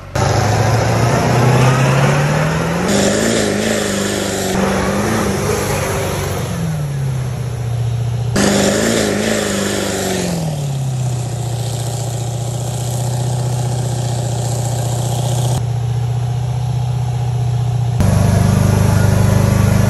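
Diesel pickup truck engine revving hard under load while driving through deep water. The engine note climbs and falls twice, then holds steady, with the sound changing suddenly a few times.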